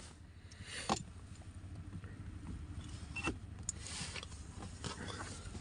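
A few short clicks and knocks as an OBD diagnostic cable's plastic connector is handled and pushed into a car's OBD port, over a steady low hum.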